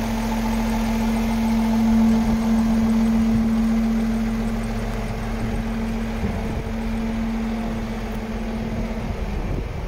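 MAN TGS 26.460 truck's straight-six diesel engine running steadily with a strong, even drone while the hydraulic tipper body is being raised. The drone stops shortly before the end, leaving a rougher engine rumble.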